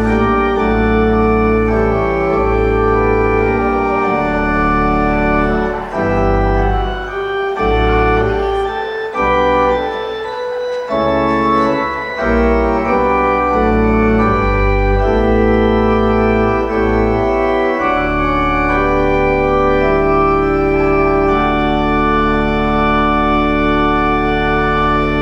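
Instrumental keyboard music of sustained chords over a deep bass, changing every second or so, ending on one long held chord through the last several seconds.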